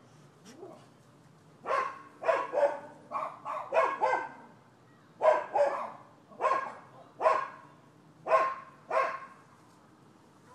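Dog barking repeatedly: about a dozen barks in short irregular runs, with a brief pause about five seconds in.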